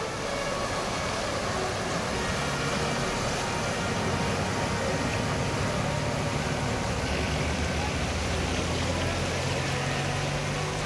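Mini hatchback driving through deep floodwater over the rush of the flowing water and its bow wave. The engine's low steady hum comes in a couple of seconds in and grows louder near the end.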